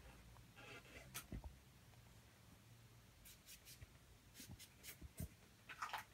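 Faint, scattered rustling and crinkling of shredded toilet paper as a cat chews and tugs at it, with a few light ticks around the middle and a short scratchy rustle near the end.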